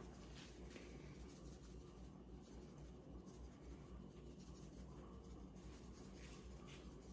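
Faint rustling as ground cinnamon is shaken from a paper packet onto rice pudding, over quiet room tone.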